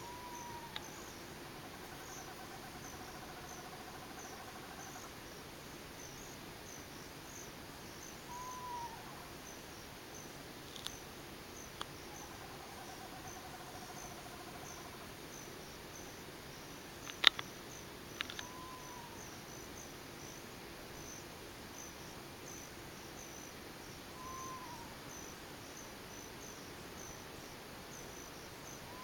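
Night insect chorus, with crickets chirping steadily at a high pitch, and over it an unidentified animal calling: a short arched call repeated every several seconds, and two longer wavering trills, a few seconds in and again about thirteen seconds in. A sharp click about seventeen seconds in is the loudest sound.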